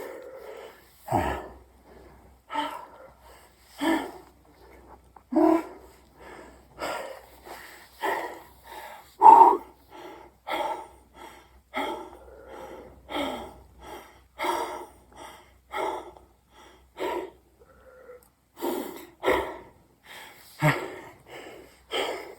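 A man breathing hard and heavily while doing burpees, a loud, forceful breath about every second and a half.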